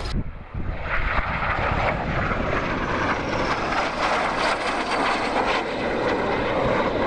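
Jet engines of two aircraft flying past in formation: a steady jet roar that comes in about a second in and holds.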